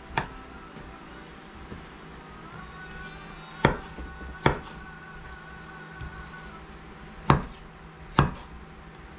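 Kitchen knife cutting tomatoes on a wooden cutting board: five sharp knocks of the blade meeting the board, irregularly spaced, with fainter cutting ticks between them.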